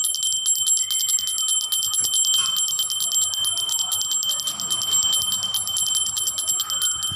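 Temple bell (ghanti) rung rapidly and continuously, its clapper striking about a dozen times a second with a steady, high-pitched ring. The ringing stops right at the end and dies away.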